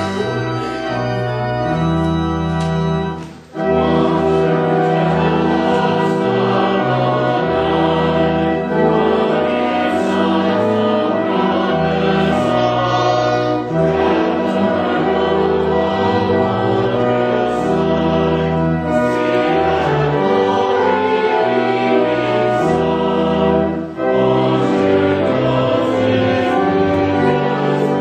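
Church organ playing held chords, then, about three and a half seconds in, a choir starts singing with the organ accompanying.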